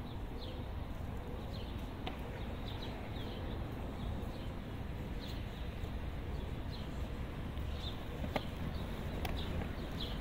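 Open-air city-square ambience: small birds chirping in short falling notes about once a second over a steady low rumble, with a few sharp clicks.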